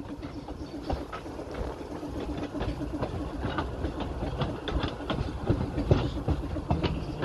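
Narrow-gauge train running along the track: a steady low rumble with irregular clattering knocks from the wheels and the coaches.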